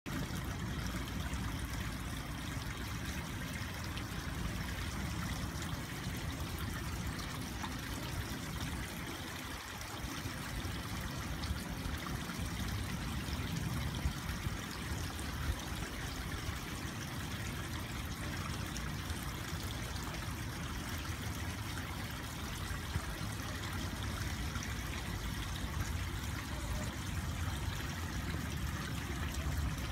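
Steady trickle of water running into a garden koi pond, with an uneven low rumble underneath.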